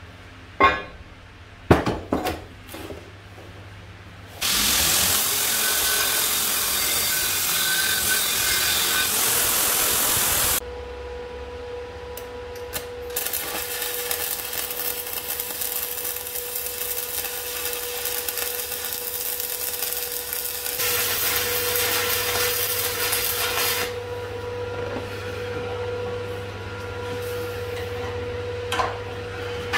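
A few sharp clanks of steel plate being handled, then a long, steady hiss of metalwork, then a MIG welder crackling while it runs a seam joining two steel plates, with a steady hum underneath.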